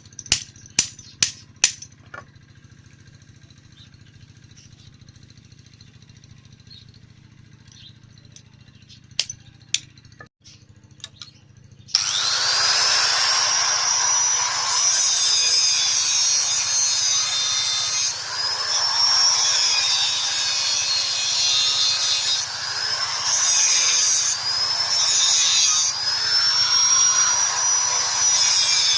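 A few sharp metallic clicks and taps. Then, about twelve seconds in, a hand-held angle grinder starts suddenly and grinds metal, its whine dipping in pitch several times as it is pressed into the work and rising again as it frees up.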